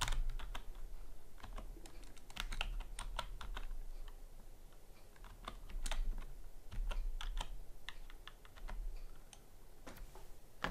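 Typing on a computer keyboard: irregular keystroke clicks in short runs with brief pauses between them.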